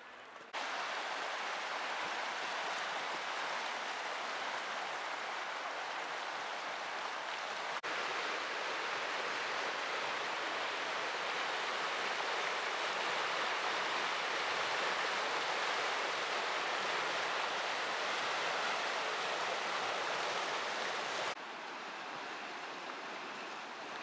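Fast river water rushing over rapids, a steady, even rush that starts abruptly about half a second in and drops to a quieter rush near the end. The river is running high with its winter flow.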